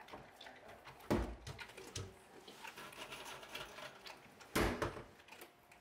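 Two short thumps, about a second in and near the end, with faint clicks and rustle of movement between them, in a quiet small room.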